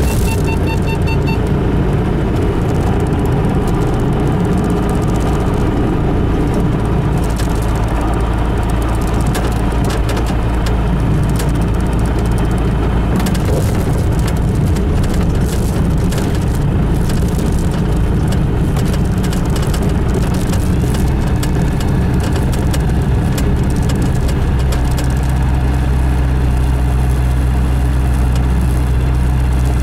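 Single-engine light aircraft's engine and propeller running at low taxi power, heard from inside the cockpit as a steady drone whose low tones shift about twenty seconds in. A rapid beeping sounds during the first second and a half.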